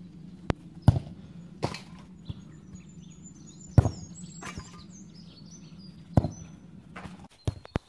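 Boot-on-football kicks: a series of sharp thuds, the strongest about a second in, near four seconds and about six seconds in, with lighter knocks between. Birds chirp in the background, and a steady low hum stops shortly before the end.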